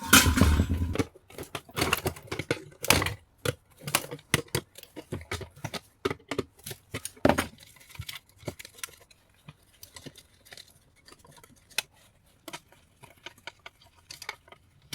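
Small pieces of brass scrap clinking and clattering as they are handled and dropped. A loud clatter in the first second, then scattered clicks and taps that thin out toward the end.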